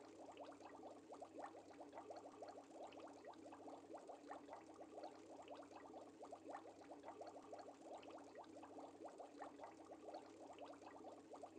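Faint, continuous aquarium bubbling: a rapid stream of small air bubbles gurgling through water over a low steady hum.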